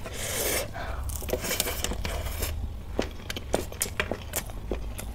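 Fingers mixing rice and curry against a metal plate, a short wet scraping rush at the start, followed by close-miked eating sounds: chewing, lip smacks and small mouth clicks.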